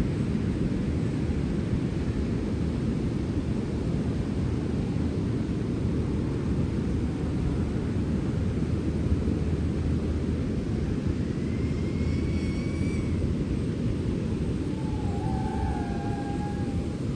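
Sea wind blowing as a steady, deep rushing noise. Faint short high-pitched calls sound about two-thirds of the way in and again near the end.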